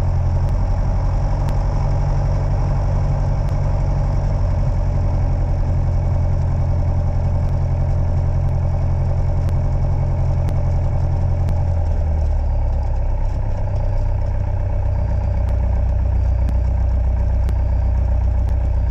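Light aircraft's piston engine running at low power, heard inside the cockpit as a steady low drone whose note drops a little about twelve seconds in. Faint clicks every second or so come from the recorder.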